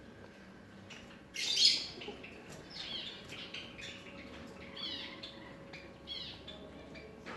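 Birds calling: one loud harsh squawk about a second and a half in, followed by several short, quick chirps that fall in pitch.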